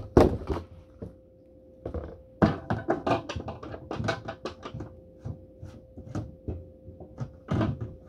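Aluminium soda cans knocking and clinking against each other and the plastic door rack of a mini fridge as they are loaded in: a string of light, uneven knocks and clicks over a faint steady hum.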